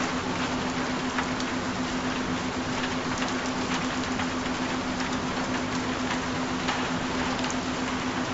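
Recorded rain falling steadily, a dense hiss with scattered individual drop ticks. Under it runs one steady low tone, the kind of binaural-beat frequency tone laid into such tracks.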